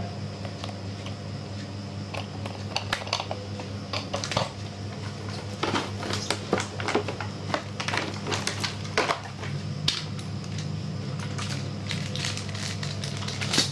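Clear plastic packaging crinkling and rustling, with scattered clicks and light knocks as a toy RC crawler, its transmitter and parts are handled and unwrapped, over a steady low hum.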